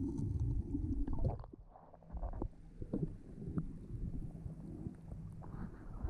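Underwater, a scuba diver's exhaled bubbles rumble and gurgle for about the first second and a half. After that it is quieter, with a few scattered sharp clicks and knocks from handling.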